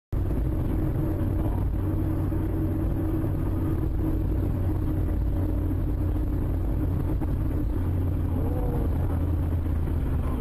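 Steady low rumble of a car driving at about 55 km/h, engine and tyre noise heard from inside the cabin through a dashcam.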